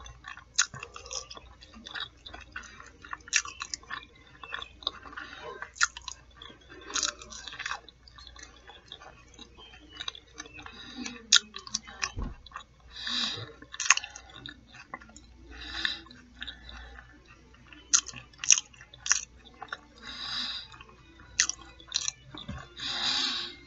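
Close-miked eating sounds: chewing and biting fried fish nuggets and fries, with many sharp crunches and clicks and a few longer hissy mouth sounds.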